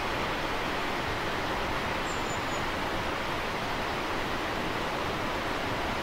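Steady rush of water from a 50 m waterfall plunging into a river pool.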